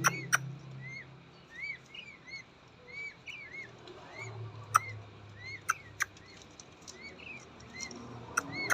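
Peachicks peeping: a run of short peeps that rise and fall, about one or two a second. Several sharp clicks or taps come in among them.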